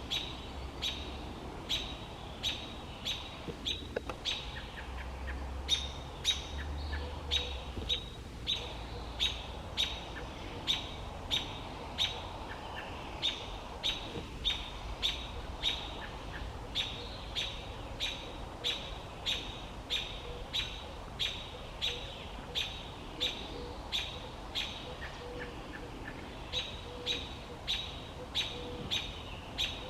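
A bird repeating a short, sharp chirp over and over at an even pace, about three calls every two seconds, with a few brief pauses.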